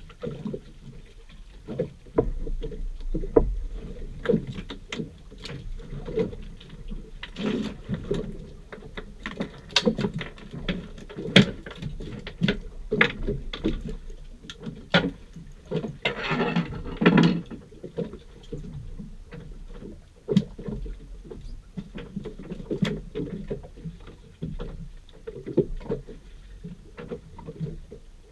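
Small waves slapping and knocking against the hull of a center-console fishing boat: an uneven run of low thumps and splashes with sharp knocks among them, and one louder, longer burst about sixteen seconds in.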